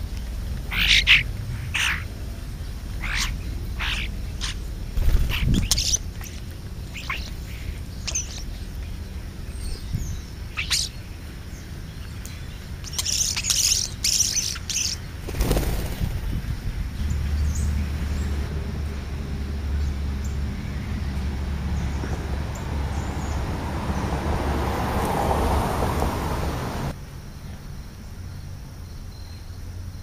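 European starlings giving short, separate chirps and calls, busiest in the first half, with a quick run of higher calls about halfway. After that a steady low rumble and a rising hiss take over and stop abruptly near the end.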